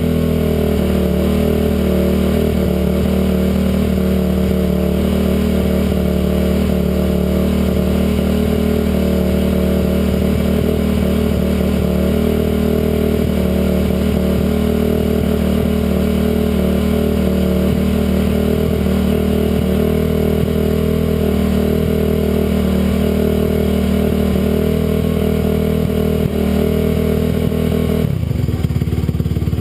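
Stock 2007 Honda CRF250R's single-cylinder four-stroke engine running at a steady, held speed, with a stock exhaust. Near the end the engine note drops.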